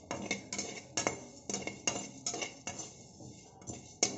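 Slotted spatula scraping and knocking against an aluminium kadai as it stirs roasting urad dal, moong dal and cumin seeds, with the grains rattling across the pan. The strokes come about two or three times a second.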